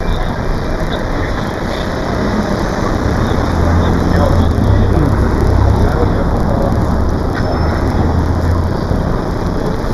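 A motor vehicle's engine running: a low, steady rumble that swells from about three seconds in and fades near the end, over a constant hiss of street noise.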